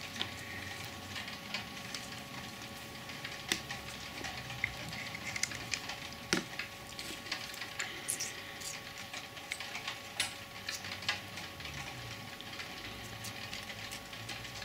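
Small handling noises from card pieces being pressed together and glue being spread along their edges with a thin stick: scattered light clicks and scratches. A faint steady hum sits underneath.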